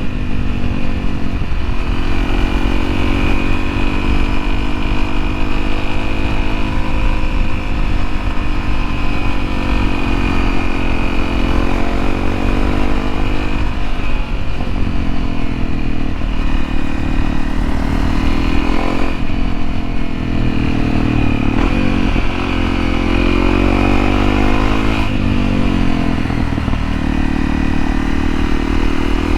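Honda CRF250L's single-cylinder engine running under way, its revs rising and falling over and over with throttle and gear changes.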